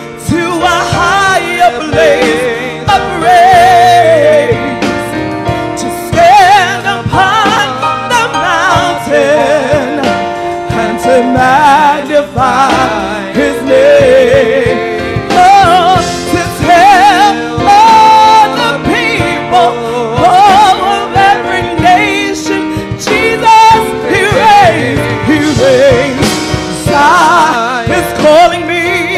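A woman singing a gospel song solo into a microphone, her voice wavering with heavy vibrato and quick melodic runs. An electric guitar and other band instruments accompany her.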